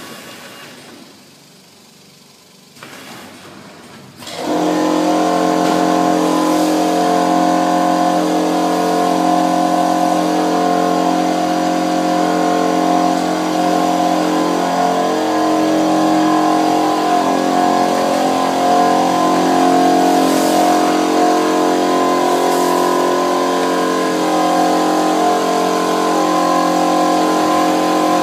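A machine's motor switches on about four seconds in and then runs steadily with a strong, even hum.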